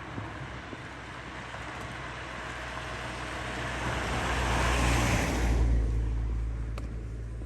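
A car passing close by: its tyre and engine noise builds for about four seconds, peaks about five seconds in, then falls away quickly.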